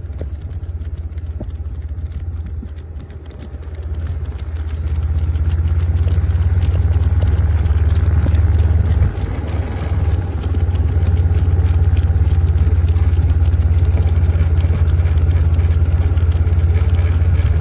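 A vehicle engine running steadily with a low rumble, growing louder about four seconds in and holding steady after, with faint rapid ticks over it.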